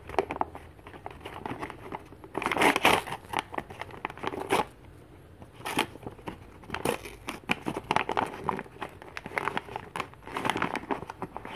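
Homemade paper blind bag being torn open and crumpled by hand, with paper crinkling and ripping in irregular bursts, the loudest rip about two and a half seconds in.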